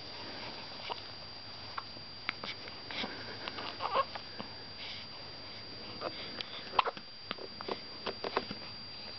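Baby hiccupping: a string of short, sudden hics at uneven intervals, with small sniffs and mouth sounds between them, the loudest about seven seconds in.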